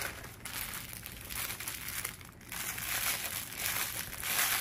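Plastic packaging crinkling as a light-blue poly mailer is handled and a plastic-bagged garment is pulled out of it, with a brief lull a little past halfway.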